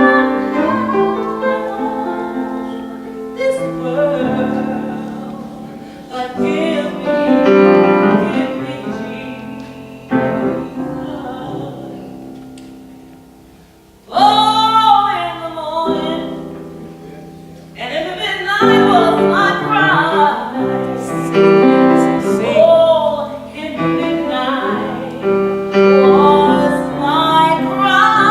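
A woman singing with piano accompaniment. The music fades away just before the middle and then comes back in strongly.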